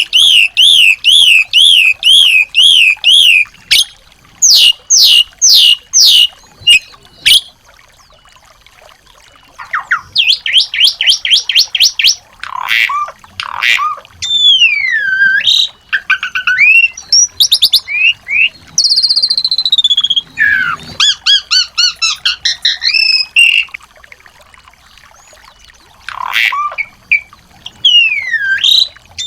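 Small songbirds singing loudly in varied phrases: a fast rippling trill in the first few seconds, runs of rapid repeated notes, and whistled slurs sweeping down and up in pitch, with short pauses between phrases.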